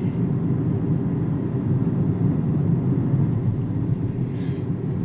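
Steady low engine and road rumble of a vehicle being driven, heard from inside the cab.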